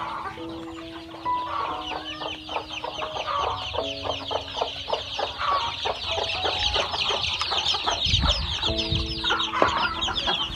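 A brood of young chicks peeping nonstop: a dense chorus of quick, high, down-slurred cheeps that grows thicker a few seconds in.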